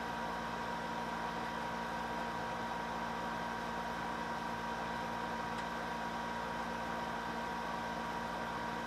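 Steady room tone: an even hiss with a constant hum at several fixed pitches, unchanging throughout.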